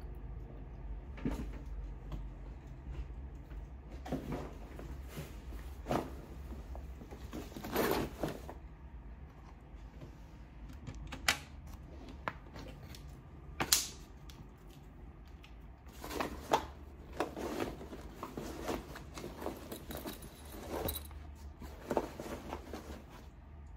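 A fabric backpack being handled and opened: rustling with scattered light knocks and clicks, two of them sharper than the rest about eleven and fourteen seconds in.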